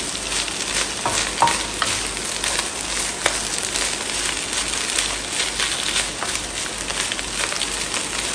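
Shredded chicken frying in oil in a nonstick frying pan, a steady sizzle, while a wooden spoon stirs it with scattered light clicks and scrapes against the pan.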